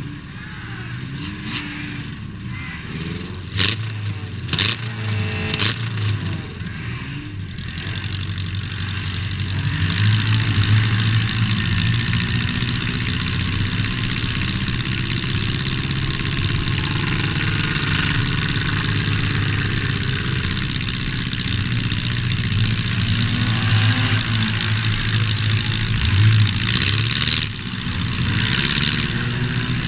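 Stripped race car's engine heard from inside the cabin, with other cars' engines around it. A few sharp bangs come between about four and six seconds in, then the engine runs harder and louder under throttle from about ten seconds in.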